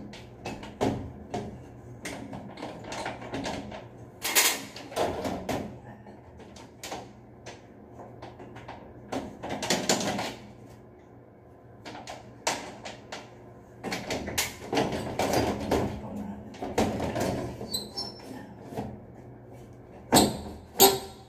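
Metal louvred elevator ceiling grille being handled and fitted into its frame: irregular clanks, knocks and rattles of sheet metal, with a few sharper knocks, the loudest near the end.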